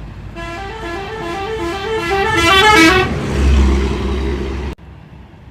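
Telolet bus horn, a set of musical air horns playing a quick tune of alternating high and low notes for about three seconds, followed by the low rumble of the bus's engine. The sound drops off suddenly near the end.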